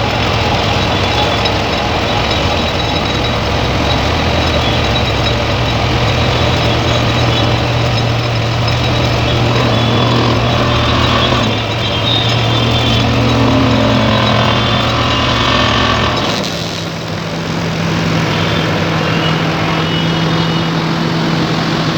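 Heavy machinery running steadily: a 35-tonne excavator working an excavator-mounted hydraulic vibratory hammer on steel sheet piles, a loud continuous hum with a rattle. About 16 seconds in the sound dips briefly and the hum settles at a higher pitch.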